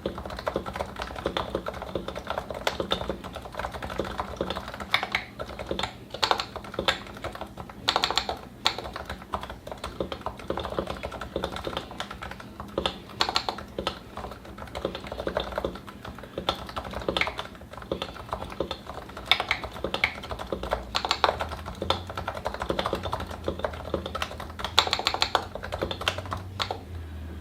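Continuous fast typing on a Realforce 87u keyboard with lubed 55 g Topre electrostatic-capacitive switches, Novatouch sliders and GMK doubleshot keycaps: a dense, irregular stream of key strokes. The typing stops just at the end.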